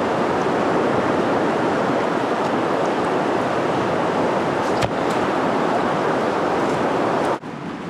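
Rushing water of a fast, snowmelt-swollen river, a loud steady roar that drops away suddenly near the end.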